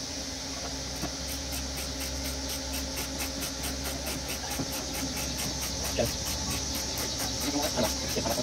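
Insects chirping in a steady, fast pulse of about five beats a second, with a few light knocks and rattles of the plastic splash shield under the car being handled, about six seconds in and near the end.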